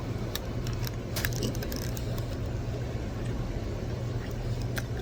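Someone eating crunchy Doritos nachos, a few sharp crunches and clicks, over a steady low hum.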